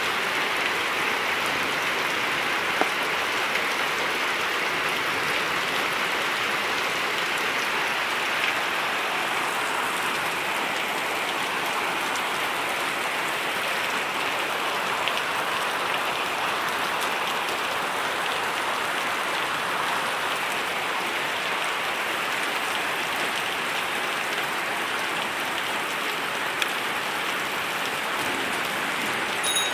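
Heavy rain pouring down and splashing on hard surfaces, a steady even rush with the odd louder drop.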